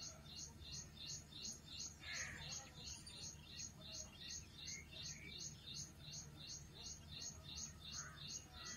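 Faint background chirping: short high chirps, each falling slightly in pitch, repeat evenly about three times a second over a low steady hum.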